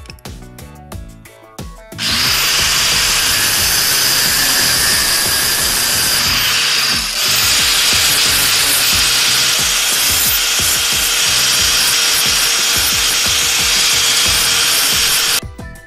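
A small wooden bar being ground against a spinning power-driven abrasive disc: a loud, steady grinding noise that starts about two seconds in, eases off briefly around the middle, and stops just before the end.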